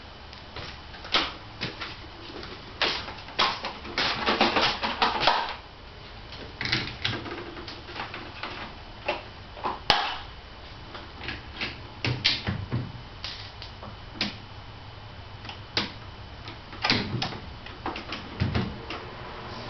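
Irregular clicks, knocks and clatter of a portable jump-starter pack being handled and hooked up in a car's engine bay, with a dense burst of clattering about four seconds in and a single sharp click about ten seconds in; the engine is not running.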